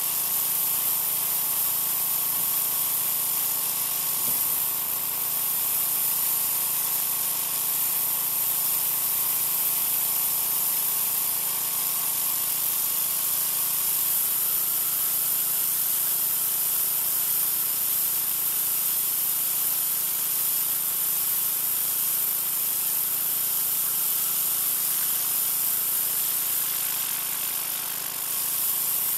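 Troy-Bilt 2200 psi pressure washer spraying concrete through an oscillating tip: a steady, loud hiss of the water jet on the pavement, with a faint steady hum beneath.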